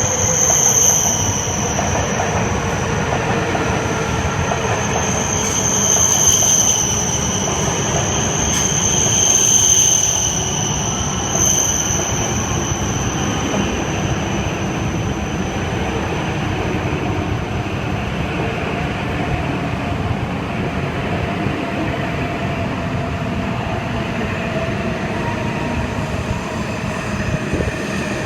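Tohoku Shinkansen train running slowly along a station platform, with steady running noise and a high wheel squeal that swells several times in the first half and then fades.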